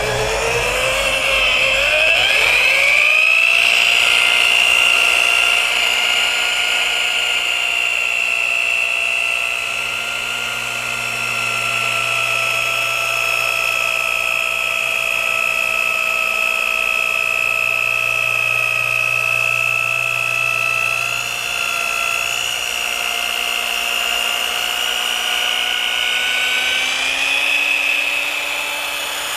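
Rotary polisher running a wool pad with cutting compound over car paint. Its motor whine rises in pitch over the first few seconds, then holds steady.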